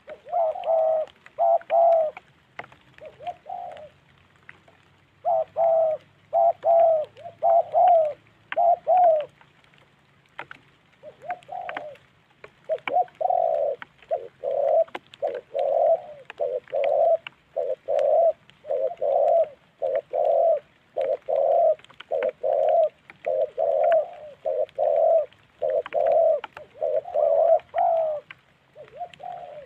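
Spotted doves cooing repeatedly: several quick bursts of coos, a short pause about a third of the way in, then a long, even run of coos at a little over one a second. This is cooing between rival doves facing off at close quarters.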